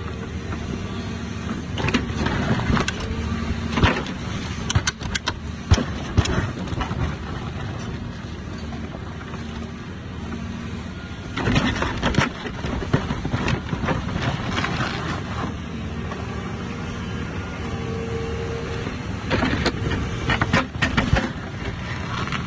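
Excavator diesel engine running under load, with several stretches of grinding and cracking as the rock ripper arm tears into rock.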